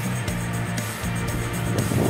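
Background music with a bass line and drums.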